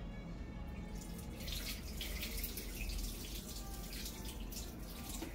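Water splashing as rinse water is poured off rice from a tilted aluminium pot, starting about a second in and going on in uneven splashes.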